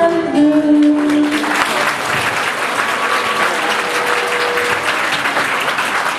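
A song ends on a held sung note about a second and a half in, then the audience applauds steadily.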